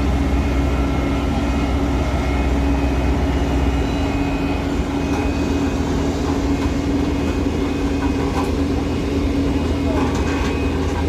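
Heavy truck's diesel engine running steadily under load on a steep climb, with a deep low rumble that eases about four seconds in.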